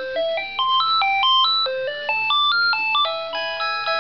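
House phone playing an electronic ringtone melody: quick beeping notes stepping up and down in pitch, changing to slower, longer held notes about three seconds in.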